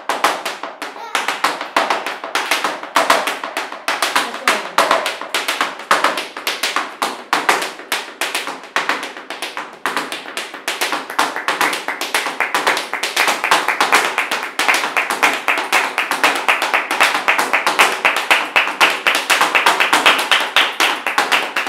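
Flamenco footwork (zapateado): shoes striking a tiled floor in a fast, unbroken run of stamps and taps, many a second, a little louder in the second half.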